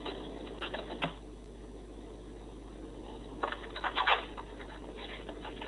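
Thick galvanized wire being handled and bent by hand, giving clusters of light clicks and scrapes about a second in and again near four seconds. Heard over a narrow video-call audio link.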